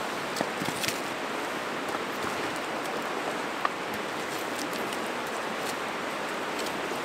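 Steady rushing of a fast mountain creek, with a few small sharp clicks over it.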